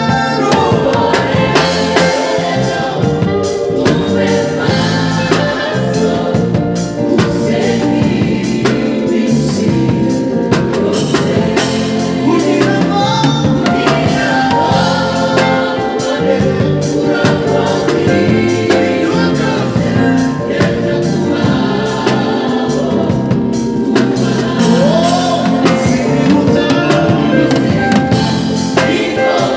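Recorded gospel choir song, many voices singing, with an electric bass played along to it.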